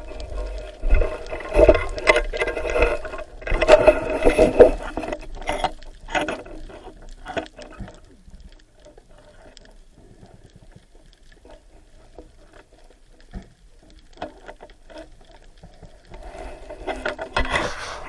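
Water splashing and bubbling in loud surges, quieter for several seconds in the middle with scattered small ticks, then rising again near the end.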